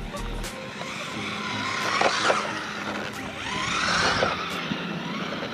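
Brushed electric motor of a 1/16-scale RC drift car whining in two bursts, about two and four seconds in, its pitch rising and falling with the throttle, over the hiss of the small tyres sliding on the pavement.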